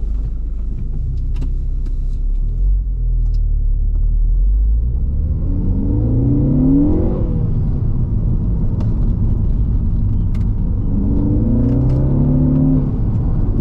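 Ford Focus ST engine heard from inside the cabin, accelerating hard twice: the pitch climbs from about five seconds in and drops back near seven seconds, then climbs again from about ten seconds in, over a steady low road rumble.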